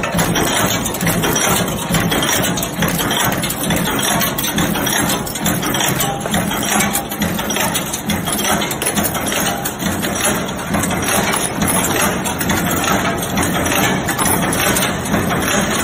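Screw-making cold heading machines running: a steady, fast clatter of repeated metal strikes over a continuous machine din.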